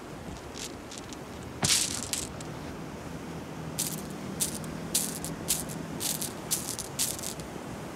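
Footsteps crunching on a pebble beach, about two steps a second, starting about four seconds in. Before them, near two seconds, comes one louder rustling crunch on the pebbles.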